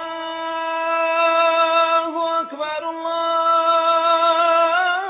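Title music carried by a long held wordless sung note that wavers slightly, dipping briefly in pitch about two and a half seconds in and stepping up near the end.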